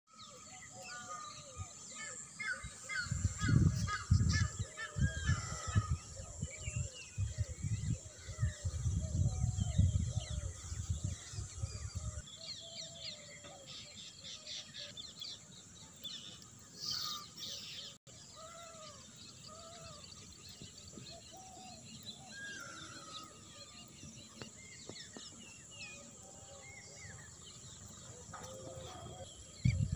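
Outdoor scrubland ambience: assorted birds calling over and over above a steady high insect drone. Low, irregular rumbling on the microphone over roughly the first twelve seconds, and a short bump near the end.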